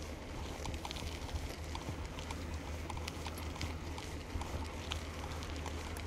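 Bicycle rolling over a rough dirt track, heard through a bike-mounted GoPro: a steady low rumble with many small irregular clicks and rattles.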